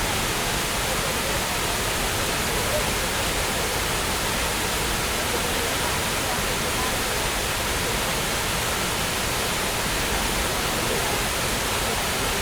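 Steady rush of a waterfall, a constant even hiss of falling water with faint voices of people mixed in.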